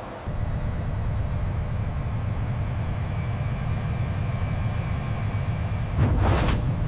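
Jet aircraft in flight: a steady low engine rumble with a faint high whine. About six seconds in, a brief loud whoosh sweeps through.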